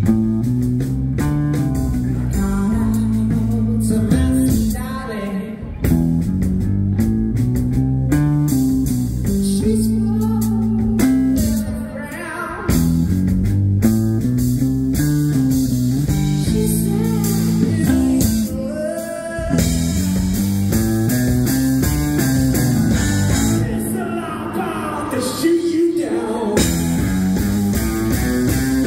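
Live blues-rock band playing: an electric guitar through a Marshall amplifier over a moving bass line.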